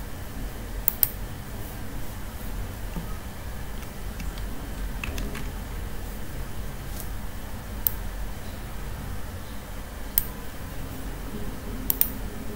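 A few sharp computer mouse clicks over a steady low background hum, with two quick clicks near the end.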